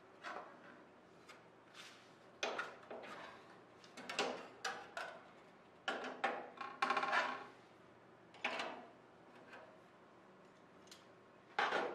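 Short metallic clanks and clinks from a hand rivet squeezer and aluminium wing parts being handled while nose ribs are riveted. The knocks cluster through the middle, one rings briefly, and a loud one comes near the end.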